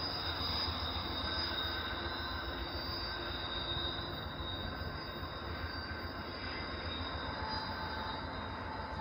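Wheel flanges of an Amtrak passenger train squealing in steady high tones as it rounds a tight curve, over a low rumble of steel wheels on rail. The sound fades slowly as the train moves away.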